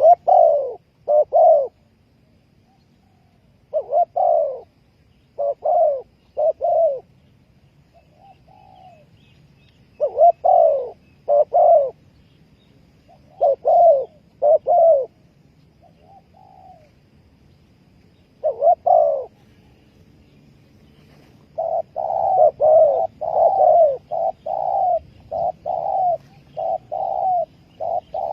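Spotted dove cooing: short coos in groups of two or three separated by pauses, then from about three-quarters of the way in a faster, almost unbroken run of coos.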